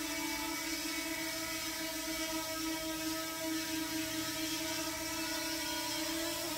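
DJI Mini 2 quadcopter hovering, its motors and propellers making a steady buzzing whine.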